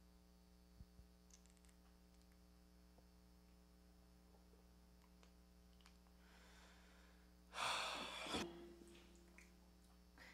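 Near silence with a low steady room hum, then, about eight seconds in, one loud breathy sigh lasting under a second that trails off into a short voiced tail.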